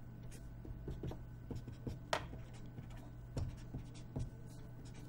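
Felt-tip pen drawing on paper: a run of short pen strokes as axis lines, arrowheads and letters are drawn, over a faint steady low hum.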